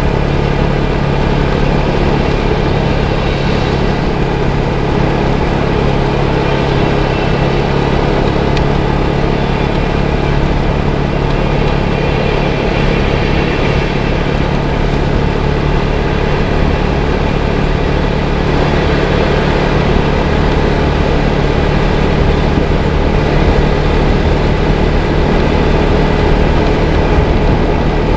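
Small 250cc motorcycle engine running at a steady pace while riding along a road, with a steady low drone under wind and road noise.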